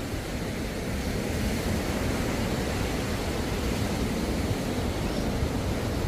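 Small waves breaking and washing up a sandy beach: a steady rush of surf over a strong low rumble.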